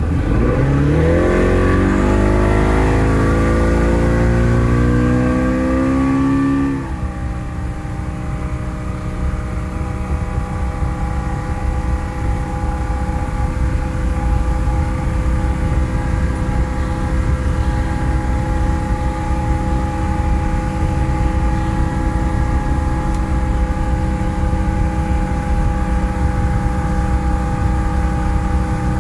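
Johnson 115 two-stroke V4 outboard pushing a runabout up to speed: its pitch climbs steeply for about seven seconds, then drops suddenly to a lower, steady cruising drone that holds to the end, over a low rumble of wind and water.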